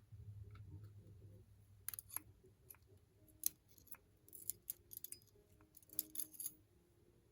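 Faint, scattered small metallic clicks and taps, several in quick clusters, from the tiny pins of a gutted lock cylinder being handled and set down.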